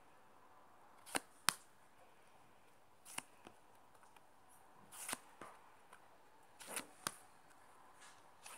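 Trading cards being flicked through by hand, one card moved off the stack after another: about seven sharp card-on-card snaps, some in quick pairs, a few with a short swish of card sliding against card.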